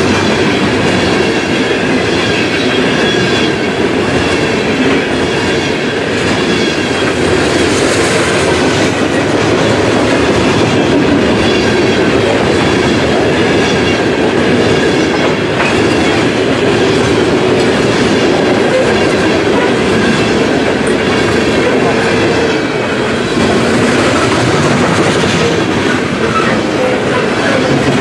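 Freight cars of a mixed freight train rolling past at speed close by: a loud, steady rumble with the clatter of steel wheels over the rail joints.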